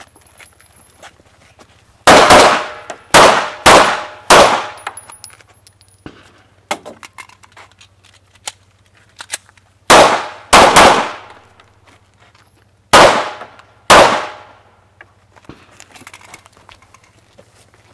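Handgun shots fired in a run-and-gun match stage: four in quick succession about two seconds in, three more close together around the middle, and two more near the end, each trailing off with an echo. Small faint clicks fall in the pause between the strings.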